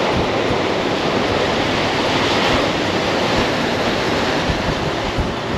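Strong storm wind blowing hard across the microphone: a loud, steady rushing noise with irregular low buffeting rumbles.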